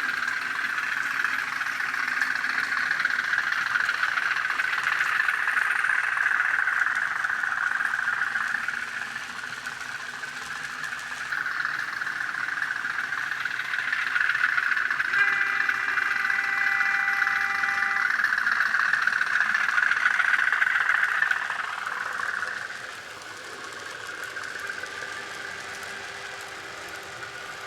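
N gauge model of the LMS 10001 diesel-electric locomotive, its DCC sound decoder playing diesel engine sound through a small speaker as it runs, growing louder and softer as it moves. About halfway through, the model's horn sounds for about three seconds.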